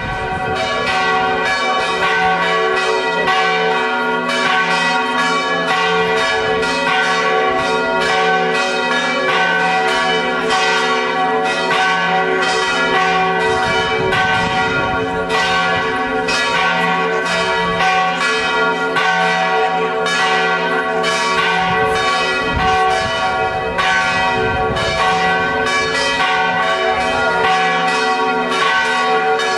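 Church bells ringing in a continuous festive peal, struck rapidly so that each new stroke overlaps the ringing of the last.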